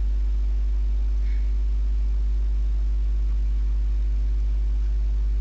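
Steady low electrical hum, typical of mains hum picked up by the recording, with fainter steady overtones above it.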